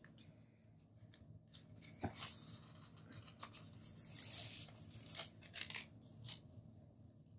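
Paper sticker sheets being handled and leafed through: quiet rustling with a few sharp taps and a longer papery rustle about four seconds in.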